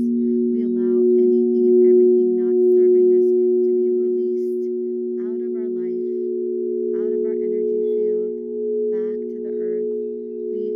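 Crystal alchemy singing bowls ringing together in several steady, overlapping tones that swell and ease gently.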